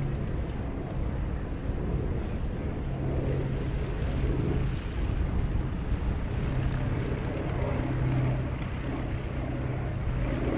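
Fairchild C-123 Provider's twin Pratt & Whitney R-2800 radial piston engines and propellers droning steadily as it flies past. A low hum swells and eases every few seconds.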